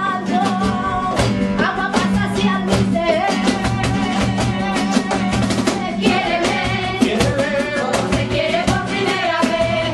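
A song with a singing voice over a steady drum beat.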